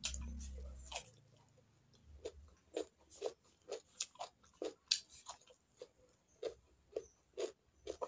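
Close-up chewing of crunchy food, raw cucumber slices, in a steady rhythm of about two crisp chews a second. It opens with a low thump and rumble lasting about a second.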